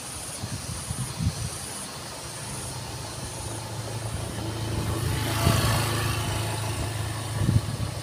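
A small motorcycle engine running as it approaches, its steady hum growing louder from about two seconds in and loudest in the second half.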